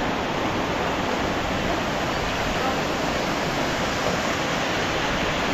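Steady rush of a rocky mountain stream and small waterfall: an even, unbroken hiss of falling water.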